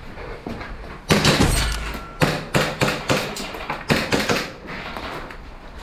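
Boots thudding quickly down concrete stairs: a heavy thump about a second in, then a run of quick, uneven footfalls.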